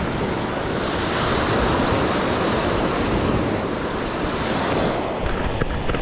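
Small surf waves breaking and washing up the sand, the wash swelling in the first few seconds, with wind rumbling on the microphone. A few short knocks near the end, from a hand handling the camera.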